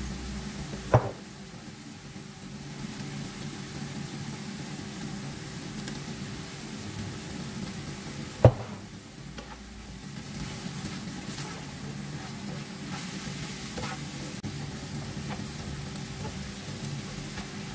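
Stir-fry vegetables sizzling in a non-stick frying pan while a spatula stirs through them. Two sharp clicks stand out, one about a second in and one about halfway through.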